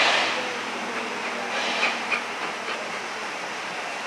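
Steam locomotive moving off: a loud blast of exhaust right at the start, then a steady steam hiss with two sharper chuffs around two seconds in.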